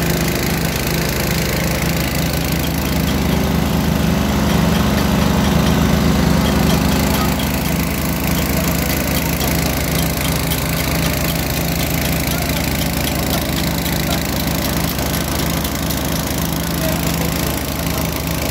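Engine of a water-well drilling rig running steadily at a constant speed.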